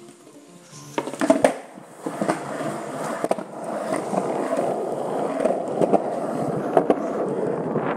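Skateboard wheels rolling on a concrete driveway, a steady rumble that grows louder over the first few seconds and then holds. Sharp clacks about a second in as the board is set down and ridden off, and short ticks scattered through the rolling.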